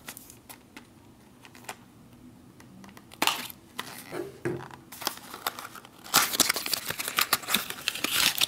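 Cardboard carton of a food tube being opened by hand: a few light taps, then short bursts of cardboard scraping and rustling a few seconds in, building to a steady stretch of scraping and crinkling near the end as the carton is worked open and the tube slid out.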